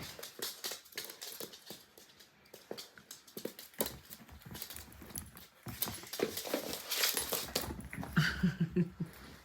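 Two chihuahuas, a puppy and an adult, play-fighting on a floor: scrabbling claws, light knocks and rustling throughout, with a few short vocal sounds from the dogs near the end.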